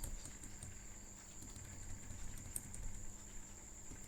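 A few faint, scattered computer keyboard keystrokes over a steady high-pitched electrical whine and a low hum.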